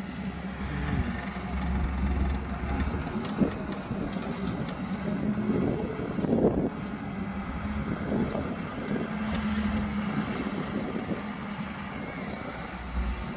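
Volvo wheeled excavator's diesel engine running steadily as it works, with a few louder knocks about a third and halfway through.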